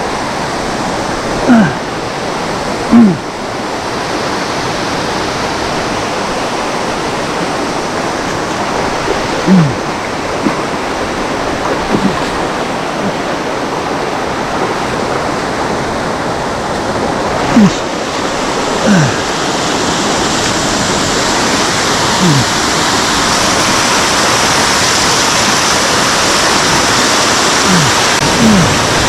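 Mountain stream rushing over rocks in a steady wash, growing louder in the last third. About nine short, loud, low sounds, each falling in pitch, come at irregular intervals over the water.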